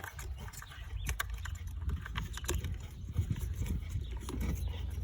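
Irregular light clicks and knocks of ignition coils and their plastic connectors being handled in a car's engine bay, over a steady low rumble.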